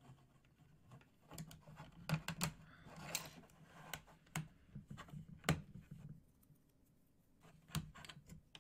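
Small plastic Mega Bloks pieces clicking and rattling as they are handled and snapped together: a quick run of clicks for several seconds, a short lull, then a few more clicks near the end.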